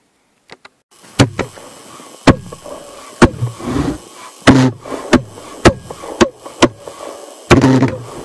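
Small valveless pulsejet engine being started: sharp pops roughly once a second over a steady rushing, as it fires unevenly and fails to catch. Near the end it runs in a brief stuttering burst.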